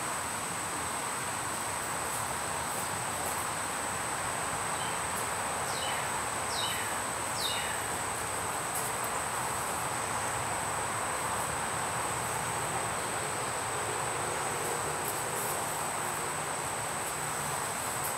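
A steady, high-pitched insect drone over outdoor noise. About six to seven and a half seconds in come three short falling notes.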